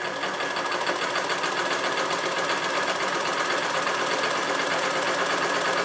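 A 1955 Singer 99K sewing machine running steadily as it stitches a seam, with a fast, even ticking of its needle mechanism.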